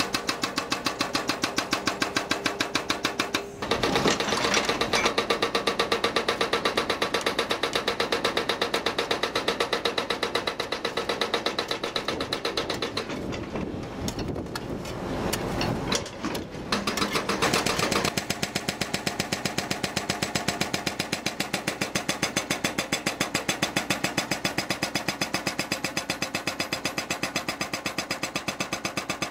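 Hydraulic rock breaker on a JCB JS160 excavator hammering rock in rapid, even blows, breaking off briefly a few seconds in.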